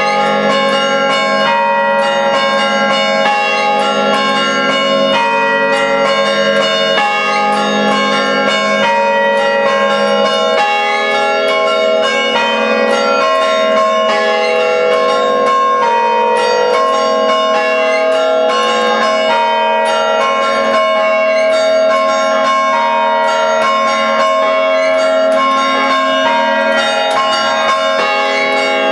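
Five church bells in a tower, played by hand through rope pulls in a traditional chime. Strikes follow several times a second in a rhythmic pattern, and the bell tones ring on and overlap throughout.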